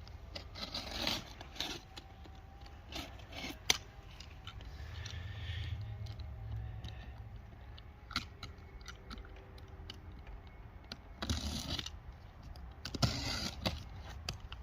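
Large cardboard box being handled and opened: scraping, crunching and tearing of cardboard and tape in irregular bursts, with a sharp click about four seconds in and a heavier stretch of scraping near the end.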